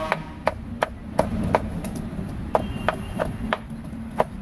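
A knife chopping grilled meat on a chopping board in quick, even strokes, about three a second, with a short pause about halfway through, over a steady low background noise.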